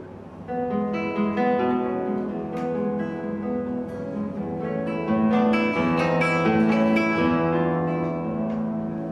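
Solo acoustic guitar playing a prelude: plucked notes in a flowing melodic line, growing fuller toward the middle and easing off near the end.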